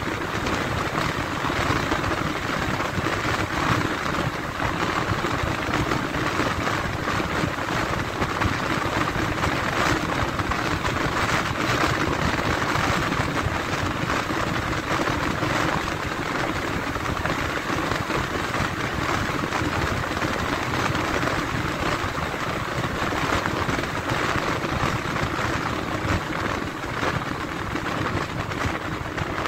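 Steady rushing noise of a vehicle on the move, with no clear engine note standing out.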